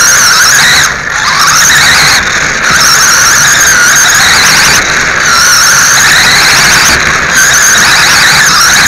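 Loud, high-pitched whine of a radio-controlled late model race car's motor and gears, heard from on board the car. The pitch rises and falls with the throttle, with several brief dips.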